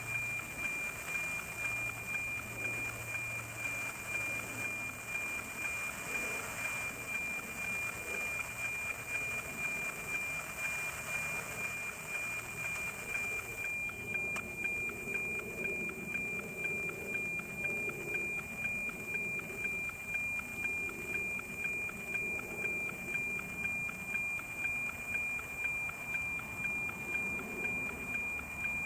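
NOAA 19 weather satellite's APT image signal, received on an RTL-SDR radio and played as audio: a steady high whistling tone with an even tick-tock about twice a second, over radio hiss.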